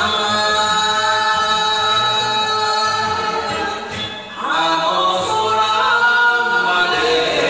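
A man and a woman singing a Japanese duet together into microphones over a karaoke backing track, with long held notes. They break off briefly about four seconds in, then start the next phrase.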